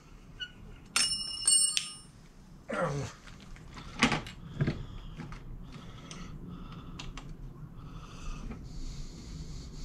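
A bright metallic ring, struck twice about half a second apart, then scattered clicks and knocks of metal parts as the folding bike's hinge bolt is worked by hand.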